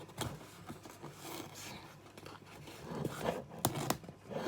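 A delivered parcel being opened by hand: scattered scraping, rustling and tearing of packaging, with a few short sharp clicks, the busiest stretch a little past the middle.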